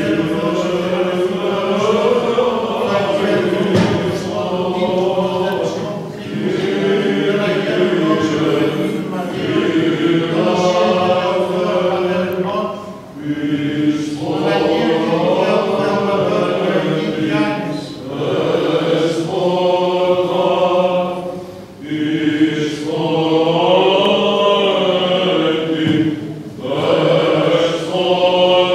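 Greek Orthodox Byzantine chant sung in a church, long melismatic phrases with short breaths between them and a steady low held note beneath.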